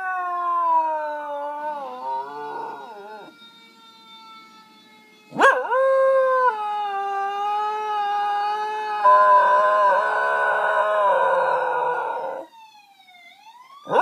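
Corgi howling in long, wavering notes in answer to a siren. The first howl slowly falls in pitch. After a short lull comes a louder, longer howl that turns rough and broken toward its end. In the pause near the end a siren's falling-and-rising wail is faintly heard, and the dog starts howling again right after it.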